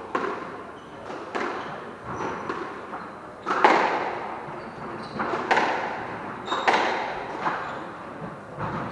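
Squash rally: the ball struck by rackets and smacking off the walls about once a second, each hit echoing in the court, the hardest hit about a third of the way in. Short high squeaks of court shoes on the wooden floor come between the hits.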